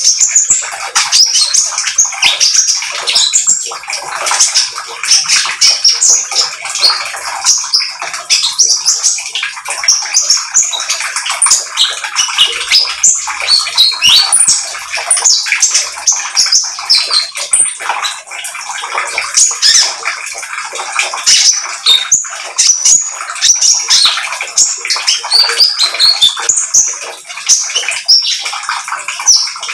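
Caged sunbird singing a fast chattering song of short, thin, high notes, almost without pause, over a steady hiss.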